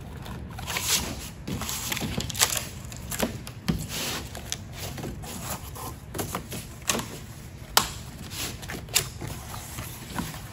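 Corrugated cardboard box lid being folded and handled: irregular sharp taps and crackles as the flaps are creased along the score lines, with cardboard sliding and rubbing on the table in between.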